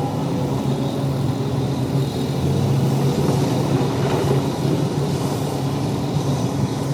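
Heavy diesel engine of a Tata Hitachi excavator running steadily.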